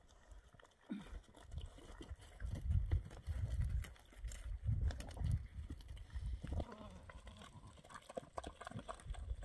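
Nanny goat making a series of low, soft calls to her newborn kid, with light clicks and scuffs on the stony ground.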